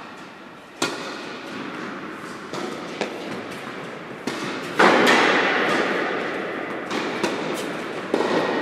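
Tennis rally: sharp pops of racket strikes and ball bounces on a hard court, echoing in a large indoor hall. The loudest hit comes about halfway through and rings on for a couple of seconds.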